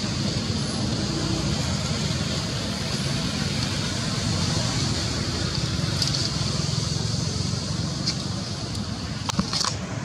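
Steady low rumbling outdoor background noise, with a few short clicks near the end.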